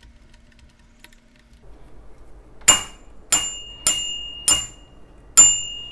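Small handlebar bell on an R for Rabbit Tiny Toes Lite tricycle, rung five times with its thumb lever. The rings come about half a second apart after a quiet start, with a slightly longer gap before the last one, and each is a sharp ding whose ringing tone fades away.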